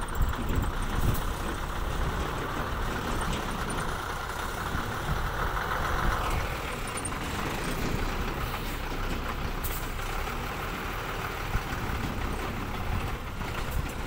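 Ashok Leyland tipper truck's diesel engine idling steadily, with a higher hum that swells and stops about six seconds in.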